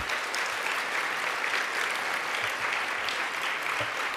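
Audience applauding: dense, steady clapping that eases slightly toward the end.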